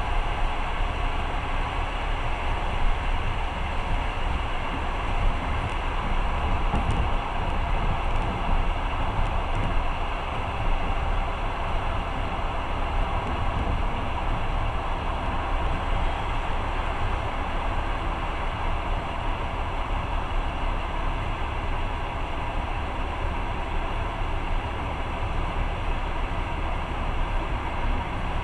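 Steady rumble and rolling noise of a moving passenger train, heard from inside the carriage.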